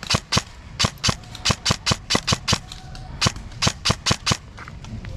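Airsoft gun firing a quick string of sharp single shots, about five a second, with a short pause partway through. The shooting stops near the end.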